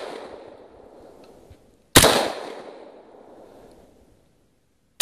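AR-15 semi-automatic rifle firing single shots about two seconds apart, each crack trailing off in a long echo. One shot lands about two seconds in and another right at the end, with the echo of a previous shot dying away at the start.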